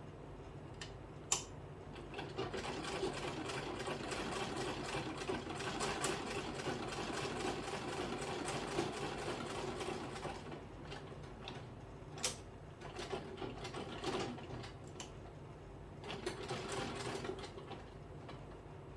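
Sewing machine stitching: a steady run of rapid stitches from a couple of seconds in to about halfway, then several short bursts with pauses between, with a sharp click shortly before the stitching starts.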